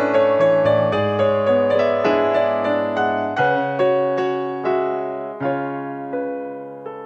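Background piano music: a slow run of struck notes and chords that ring out and die away, growing softer toward the end.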